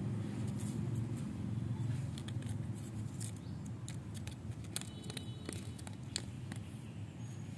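A dry leaf crackling and scraping in short, irregular ticks as it is dragged across a terrazzo floor and batted by a kitten, over a steady low rumble.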